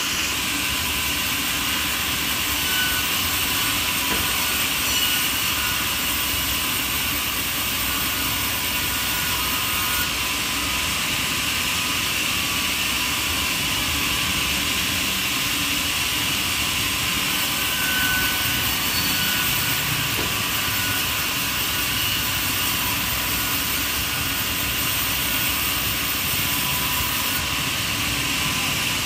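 Steady, unbroken machine noise of a power saw running, with no starts, stops or changes in pitch.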